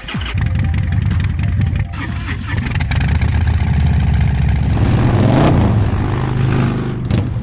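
Harley-Davidson V-twin motorcycle engine starting up and running, revved once about five seconds in.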